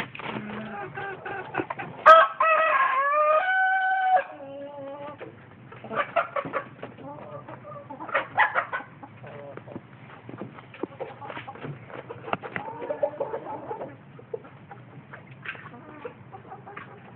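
Chickens clucking, with a rooster crowing once about two seconds in: a long call that rises, holds a steady note, then drops off. Short clicks and taps run on around it.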